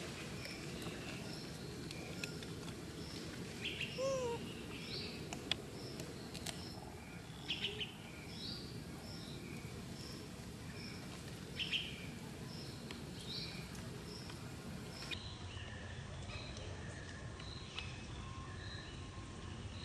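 Outdoor birdsong: birds chirping in short, repeated high notes, with a few louder chirps every few seconds, over a steady background hum.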